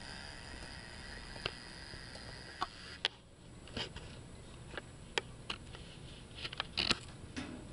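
A dog sniffing close to the microphone, with scattered sharp clicks and taps throughout.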